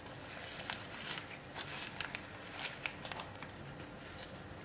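Liquid rosin flux on circuit-board pads sizzling under a hot soldering iron, a faint, irregular crackle of small ticks that thins out near the end.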